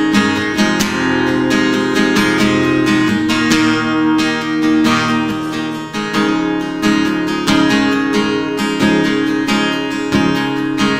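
Acoustic guitar strummed in a steady rhythm, playing the instrumental introduction to a worship song before the singing comes in.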